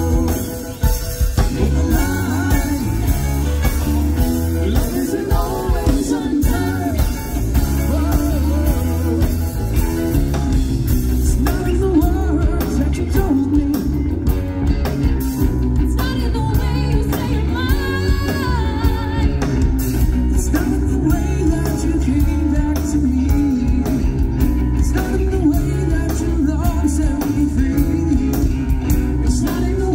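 Live rock band playing a yacht-rock song: electric guitar, bass and drums under a sung melody, amplified through a PA.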